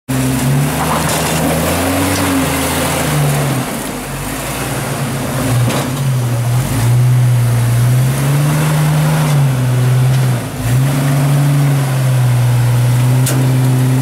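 Rock-crawler buggy's engine running under load as it climbs a rock ledge, its pitch rising and falling repeatedly as the throttle is worked, with a brief drop in revs about ten seconds in.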